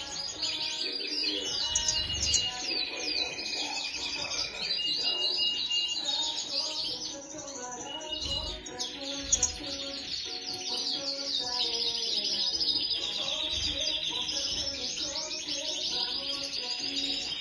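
Caged finches singing: fast, high twittering trills and chirps, almost without pause, with a few short held whistles near the start.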